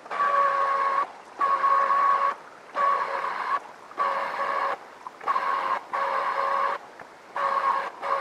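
Electric citrus juicer motor spinning its reamer cone in short bursts of about a second each, starting and stopping as lemon halves are pressed down on it and lifted off, with a steady whine while it runs.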